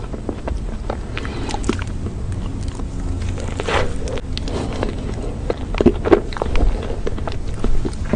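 Close-miked mouth sounds of eating soft chocolate ice cream: scattered wet clicks and smacks, a little louder around the middle, over a low steady hum.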